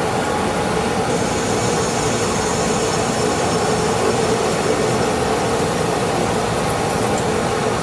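Metal lathe running steadily with an even hum while a cutoff tool parts a small finished bolt from the bar stock.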